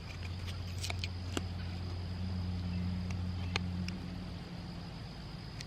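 A low engine rumble, like a passing car, swells and then fades away over a steady high insect trill. A few small sharp clicks of parts being handled come over the top.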